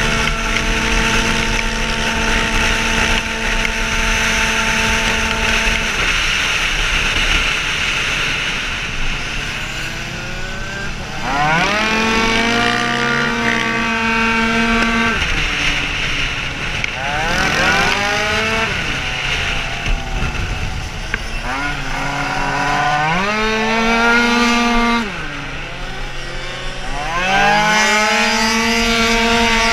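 Tuned two-stroke racing scooter engine at high revs, its pitch dropping off and then rising sharply again under hard acceleration about four times, over steady wind rush on the onboard microphone.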